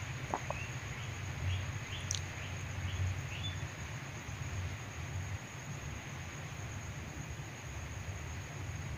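Night-time ambience: a steady, high-pitched cricket trill over a low hum, with a few short rising chirps in the first few seconds.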